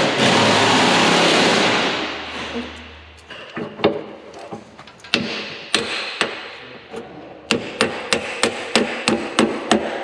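A loud rushing hiss for about the first two seconds, then hammer blows on the steel pin that holds the dozer's blade-lift cylinder rod eye in its mount. The blows are scattered at first and then come in a quick run of about four a second near the end.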